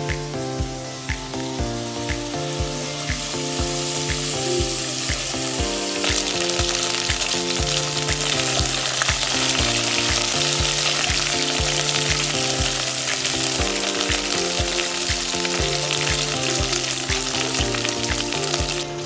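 Food sizzling as it fries in hot oil, the sizzle growing denser and louder about six seconds in.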